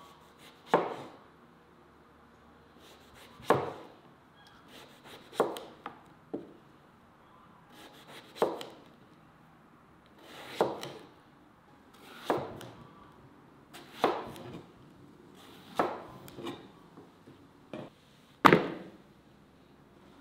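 Chef's knife slicing an eggplant into rounds on a plastic cutting board: a sharp knock of the blade reaching the board about every two seconds, about ten in all, the loudest near the end.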